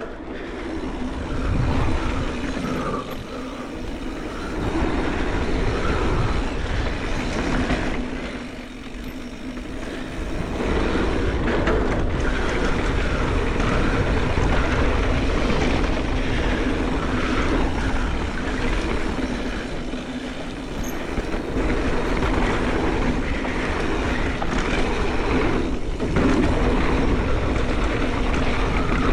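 Mountain bike descending a dirt trail: wind rushing over the microphone and knobby tyres rumbling over the ground, with a steady faint hum. It eases briefly about eight seconds in, then picks up again.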